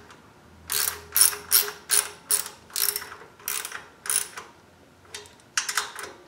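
Socket ratchet clicking in a quick series of back-swings as it tightens an acorn nut onto a bolt through a motorcycle side stand, about two or three strokes a second. After a short pause, a few more strokes come near the end.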